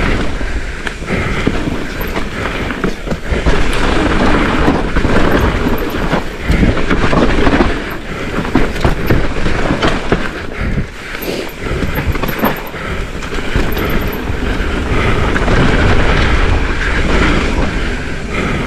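Mountain bike riding fast down a rough dirt trail: continuous rolling tyre and rattle noise with frequent knocks and clatters from the bike over roots and rocks.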